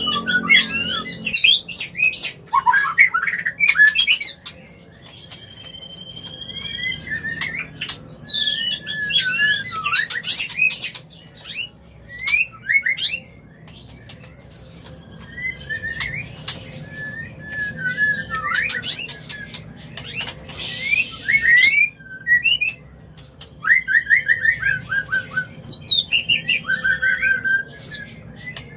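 White-rumped shama (murai batu) in breeding condition singing: a varied run of clear whistles, gliding notes, quick chirps and rapid trills, with a harsh hissing note about twenty seconds in.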